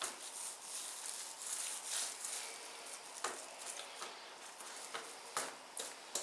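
Food wrapping foil rustling and crinkling as meat spread is rolled up in it into a sausage-shaped log, with a few sharper crackles in the second half.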